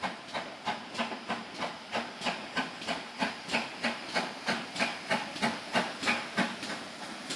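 GWR Hall class 4-6-0 steam locomotive No. 4936 working slowly, with evenly spaced chuffs from the chimney, about three a second. The chuffs stop just before the end.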